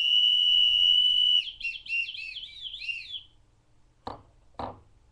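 Handmade ocarina blown hard: a loud, steady high whistle held for about a second and a half, then a warbling run of quick up-and-down pitch swoops like a bird call. Near the end come two short knocks.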